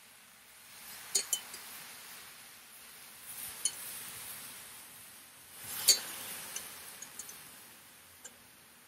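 Metal basting spoon clinking against a stainless saucepan while bourbon sauce is spooned onto pineapple slices on a hot cast-iron griddle, with a soft sizzle as the sauce lands. A pair of sharp clinks about a second in, another a little after the middle, the loudest around six seconds in, then a few lighter ticks.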